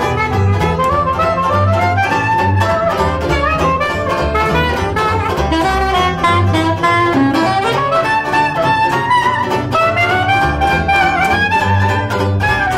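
Soprano saxophone playing a melodic jazz solo line, backed by a strummed banjo keeping a steady rhythm and a double bass playing low notes underneath.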